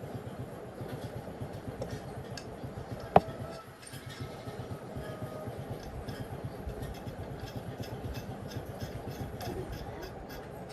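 Tractor engine running steadily, with one sharp click about three seconds in.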